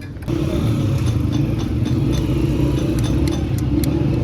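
Motorcycle engine running steadily with a tapping 'tak tak' tick over the engine sound. The sound grows louder about a third of a second in.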